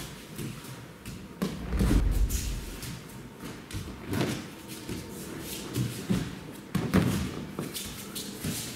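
Aikido breakfalls: bodies thrown onto the dojo's mats, landing with dull thuds, the heaviest about two seconds in and others around four and near seven seconds.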